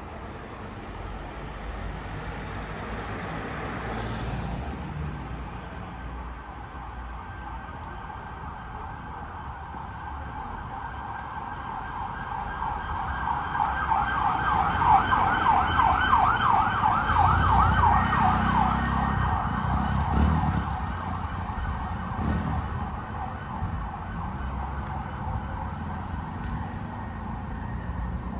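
Emergency vehicle siren on a city street, going from a wail into a rapid yelp and loudest in the middle, with road traffic rumbling underneath.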